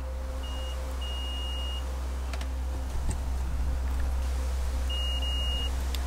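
Digital multimeter continuity tester beeping as its probes touch a fuse terminal: a short high beep, then two longer ones, the last about five seconds in, over a steady low hum.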